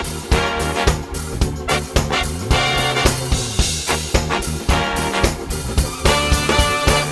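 Upbeat background music with brass and a steady beat, in a swing or ska style.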